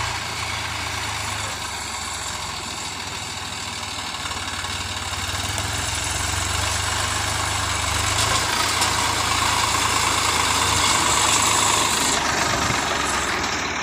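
Swaraj 744 FE tractor's three-cylinder diesel engine running steadily as it pulls a fully loaded sugarcane trolley. It grows louder as the tractor comes close, from about halfway through, then eases slightly near the end.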